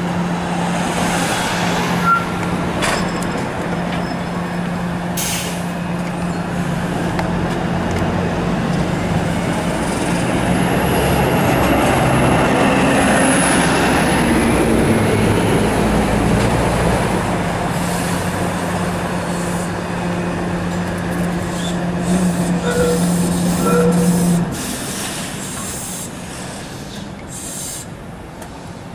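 SEPTA Kawasaki light-rail streetcar running on street track and rounding a curve toward the listener, its wheels squealing high and thin on the curve for several seconds midway. A steady low hum runs under it and stops about 24 seconds in.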